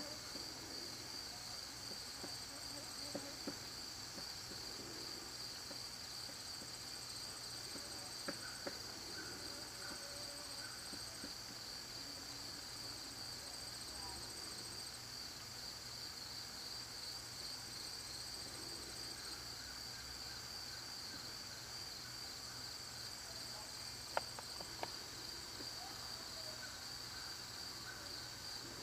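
Faint, steady chorus of insects: a high pulsing trill, with a second, higher one that comes and goes. A few faint clicks near the end.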